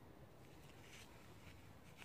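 Near silence with a few faint rustles of a paper towel wiping old grease from a CV joint's outer bell.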